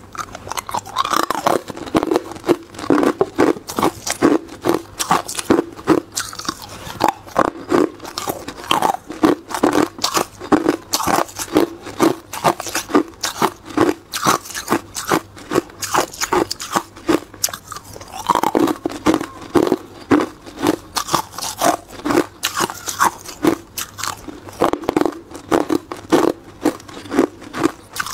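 Hard clear ice cubes being bitten and chewed close to a clip-on microphone: a rapid, unbroken run of sharp crunches and cracks.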